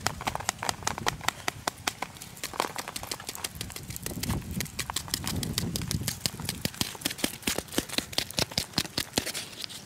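Papery wasp-nest comb crackling and snapping as fingers pry larvae and pupae out of the cells: a dense run of sharp, irregular clicks with duller rustling in between, stopping suddenly near the end.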